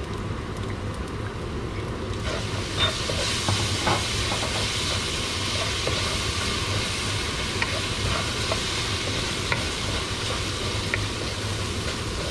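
Rice sautéing in a hot frying pan, stirred with a wooden spoon: a steady sizzle that gets louder about two seconds in, when the fish sauce goes onto the rice, with small scrapes and clicks of the spoon through the grains.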